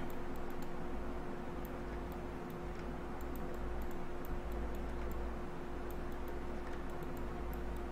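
Faint, irregular clicks of a computer mouse over a steady electrical hum and low room rumble.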